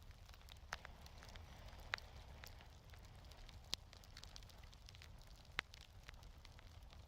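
Fireplace fire crackling faintly: a low steady rumble with scattered pops of burning wood, a few of them sharper.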